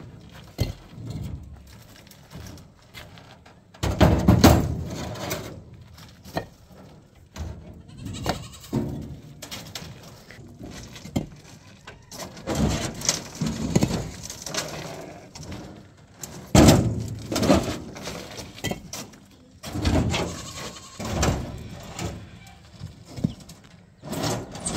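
Livestock bleating several times at irregular intervals, mixed with knocks and scrapes of concrete blocks being handled and set down.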